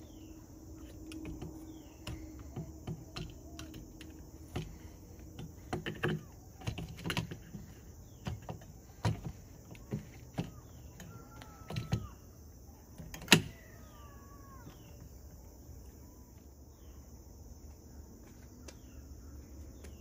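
Irregular clicks and knocks of a replacement RV entry-door latch mechanism being pushed into place in the door, with one sharp click about two-thirds of the way through, after which the handling stops.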